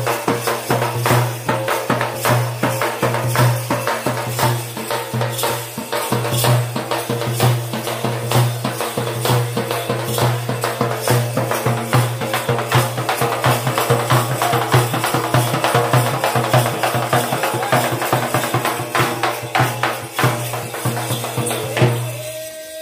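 Teenmaar folk drumming: strapped dappu frame drums beaten with sticks in a fast, dense rhythm over a steady low hum. The drumming stops about 22 seconds in.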